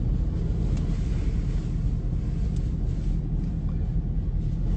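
Steady low rumble of hurricane-force wind buffeting a phone held at a vehicle beside storm-churned water.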